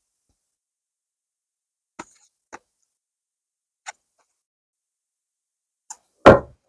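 Tarot cards being handled: a few faint, widely spaced clicks of cardstock, then a loud short knock, with a second one just after it, near the end.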